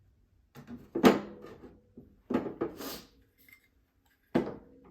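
Steel parts of an FN SCAR 16S rifle knocking and clinking together as the bolt carrier group is handled during field-stripping. The sound comes in three bursts, the loudest about a second in, each with a brief metallic ring.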